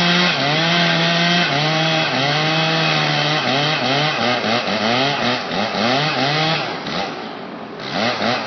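Chainsaw cutting through a tree limb: the engine runs at a steady high speed, then is revved up and down over and over as the cut goes on, and drops away with one last rev near the end.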